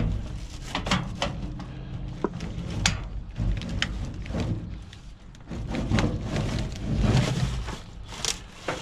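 Discarded items in a junk pile being handled and shifted: scattered knocks, clunks and scraping, busiest in the last few seconds.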